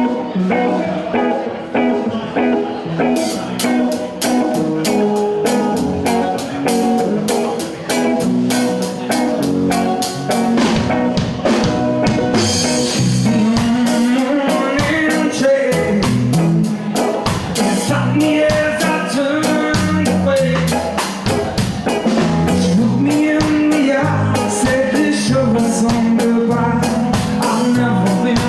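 Live band playing: electric guitar with a drum kit that comes in about three seconds in, keeping a steady beat, and singing over it later on.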